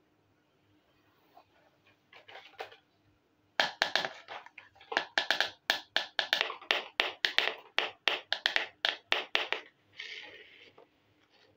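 A small red plastic miniature toy piece handled on a hard board, making a quick run of sharp plastic clicks and scrapes, about three a second. A short rubbing scrape follows near the end.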